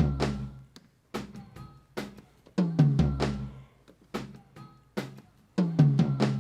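Soloed tom microphones from a live band's multitrack drum recording, with low cut and high shelving EQ on all three toms: pairs of tom hits about every three seconds, each ringing with a slightly falling pitch, with fainter drum hits in between.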